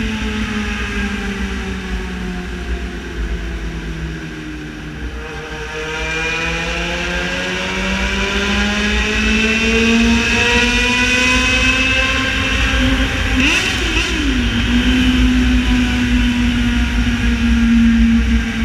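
Yamaha XJ6 Diversion inline-four through a full aftermarket exhaust, ridden: the engine note falls for about five seconds, then climbs steadily as the bike accelerates. About 13 seconds in there is a quick dip and recovery in pitch with a sharp click, and then the pitch holds steady.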